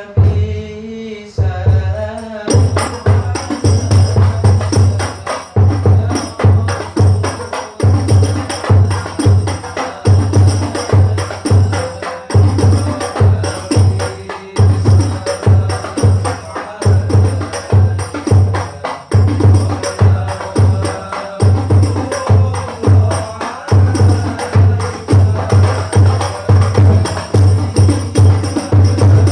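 Hadroh ensemble of hand-struck frame drums playing a steady driving rhythm of deep bass strokes with tambourine jingles over them. A man's voice sings a short opening line as the drums enter, and the full ensemble comes in about two seconds in.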